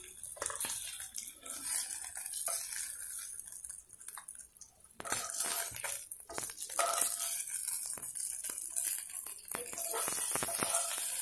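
Fish steaks sizzling in shallow oil in a non-stick frying pan, with metal tongs clicking and scraping against the pan and a steel plate as the pieces are lifted out.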